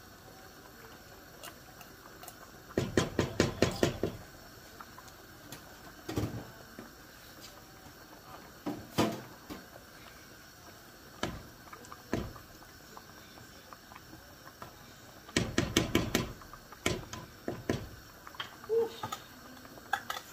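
Kitchen knocking as a metal can and a utensil are tapped against a cooking pot to empty thick condensed soup: two bursts of rapid tapping, about eight taps a second, near the start and again later, with scattered single knocks between.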